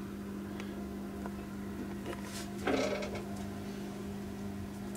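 A steady low electrical hum, with a short louder handling noise about two and a half seconds in.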